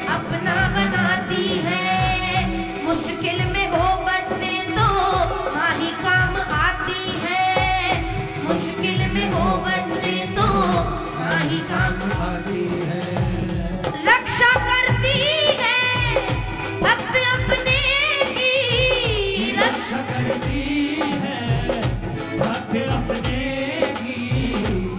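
A woman singing a Hindu devotional bhajan into a microphone over instrumental accompaniment with a steady drum beat. About halfway through, the voice climbs higher and louder.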